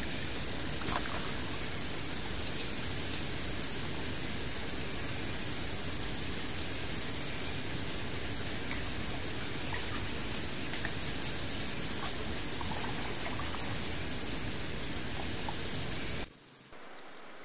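Steady riverside ambience: an even rushing noise like flowing water, with a constant high-pitched hiss over it. Near the end it drops suddenly to a much quieter level.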